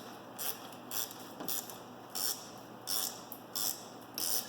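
Ratchet wrench clicking in short strokes, about two a second, tightening a bolt onto a locking nut.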